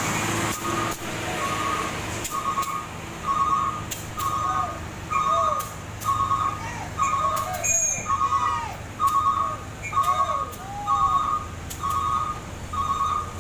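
A truck's reversing alarm beeping steadily, about one beep every three quarters of a second, over a diesel engine running. Short whistles rising and falling between the beeps.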